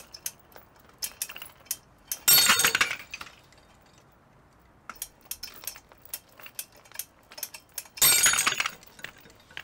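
3D-printed PLA test hooks snapping under tension on a crane scale, twice: each break is a loud sudden crack followed by the steel scale hook and chain clinking as they spring back. Scattered small sharp clicks come between the two breaks.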